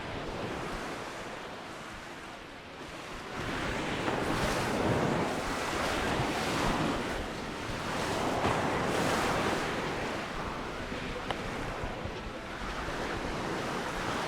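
Sea waves washing onto the beach, the surf rising and falling in several swells, loudest through the middle.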